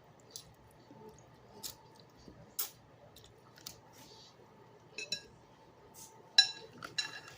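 A spoon tapping and clinking against a soup bowl while eating, with scattered soft clicks and then a quick run of louder, ringing clinks near the end.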